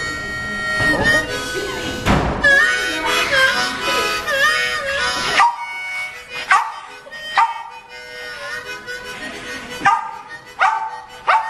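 Harmonica playing blues while a Jack Russell terrier howls along with it. In the second half the dog's howls come as a series of short cries, one after another.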